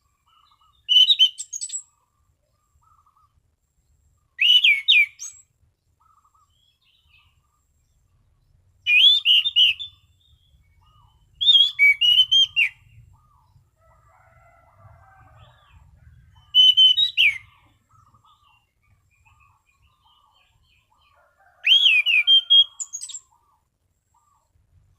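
Orange-banded thrush (anis cendana) singing its clear whistled 'ngeplong' song: six short phrases of quick rising and falling whistles, each about a second long, spaced a few seconds apart.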